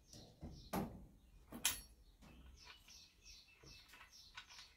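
Faint clicks and light scraping of a spark plug socket and spark plug being handled and lifted out of a chainsaw engine, with two sharper clicks about one and two seconds in.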